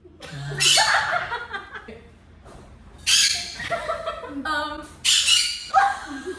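Two young women shrieking and laughing in repeated short, high-pitched bursts.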